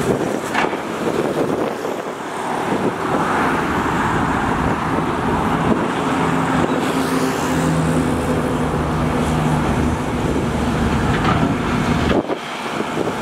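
XCMG XE215C excavator's diesel engine running steadily under working load as the arm swings and digs into the canal, with a few short knocks.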